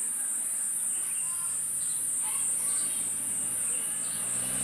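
A steady, shrill insect drone with a slight waver, with short bird chirps scattered over it.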